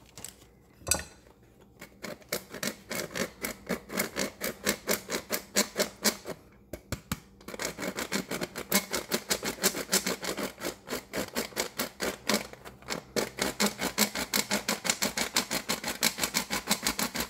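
Old hand-operated flour sifter being worked to push powdered sugar through its mesh: a fast, rhythmic rasping click, about four or five strokes a second. There is a short pause about a third of the way through and a briefer one later.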